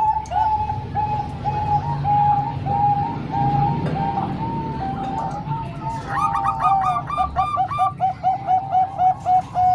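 Zebra doves (perkutut) cooing in strings of short notes. About six seconds in, a second, higher-pitched bird joins and the notes run into a quick, even series. A low steady rumble lies underneath.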